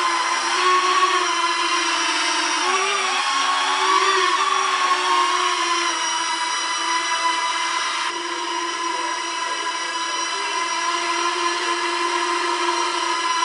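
Small quadcopter drone flying, its propellers and motors giving a steady buzzing whine. The pitch wavers about three to four seconds in, then holds steady.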